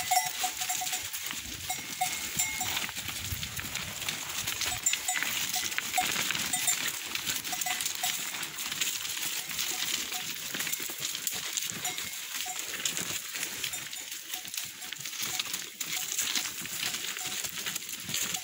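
Bells on a flock of sheep and goats clinking on and off as the animals walk, with many small clicks of steps on stones.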